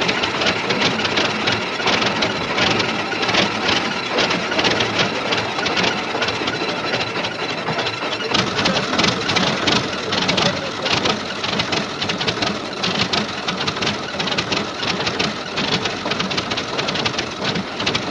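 Modified pulling tractor's engine running at a rough idle with a fast, steady knocking rattle.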